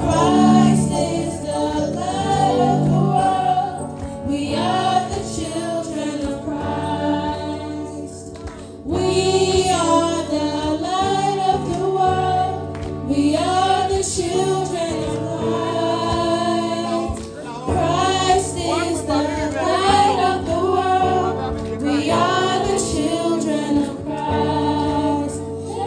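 A youth choir sings a gospel chorus together, with steady low sustained notes underneath.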